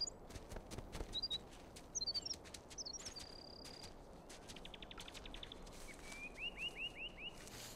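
A small bird calling: scattered short chirps, a brief held whistle, a fast trill of about ten notes, then five quick upswept chirps near the end. Soft crunching steps in snow go on underneath.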